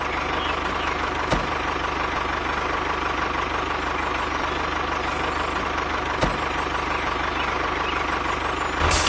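Small motor of a homemade mini tractor running steadily with a constant hum and whine. Two short clicks come about a second in and again about six seconds in.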